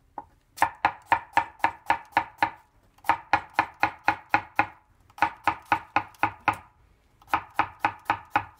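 Kitchen knife slicing a cucumber into thin rounds on a plastic cutting board: quick, even knife taps on the board about five a second, in four runs with short pauses between.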